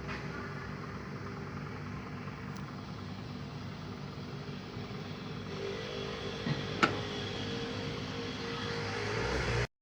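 Sharp Super Aquamagic twin-tub washing machine running with a steady motor hum. About six seconds in a higher hum joins, a sharp click comes shortly after, and the sound cuts off abruptly near the end.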